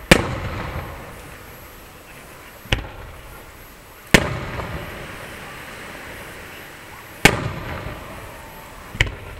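Aerial firework shells bursting: five sharp booms a couple of seconds apart, the loudest right at the start and about four seconds in, each trailing off over a second or so.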